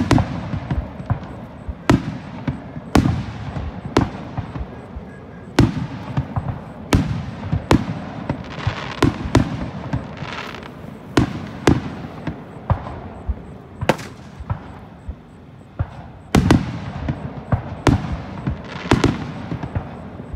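Aerial firework shells bursting in a show, a sharp bang about once a second, each followed by a low rumble, with crackle in between.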